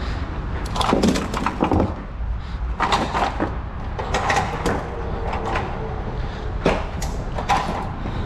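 A steady low rumble of a truck's engine and road noise, with irregular clusters of sharp knocks and clattering rattles about once a second.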